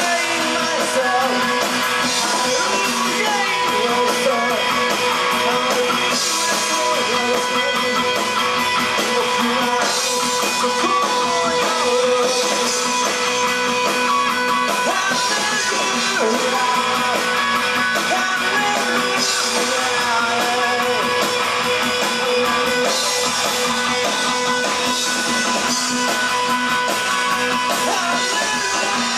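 Rock band playing an instrumental passage led by strummed guitar, with no vocals.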